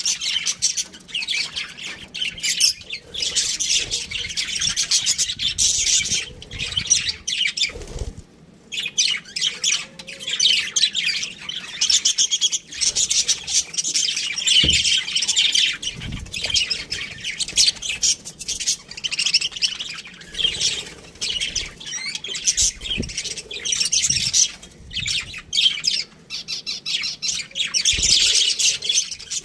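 Budgerigars chirping and warbling in a rapid, continuous chatter with short squawks and brief pauses. A few faint low thumps come in between.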